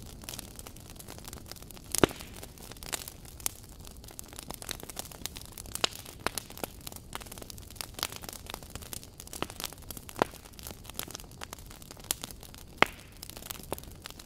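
Fire crackling: irregular snaps and pops over a steady low hiss, the sharpest snaps about two seconds in and again near the end.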